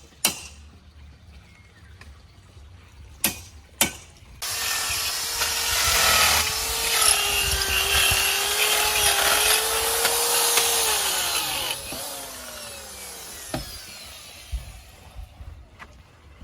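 A few sharp knocks, then about four seconds in a handheld power tool starts and runs hard for about seven seconds, its whine sagging slightly under load, before it winds down with a falling pitch.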